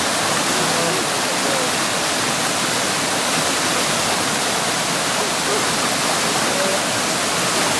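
Creek water rushing over rocks, a steady loud rush that does not change.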